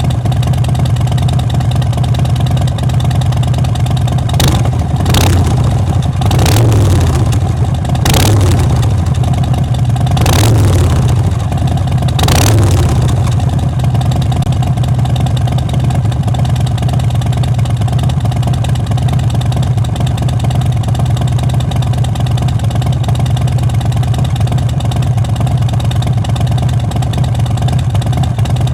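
Harley-Davidson Fat Boy 114's Milwaukee-Eight V-twin idling with its lumpy rumble, blipped about six times in quick short revs over several seconds, then settling back to a steady idle.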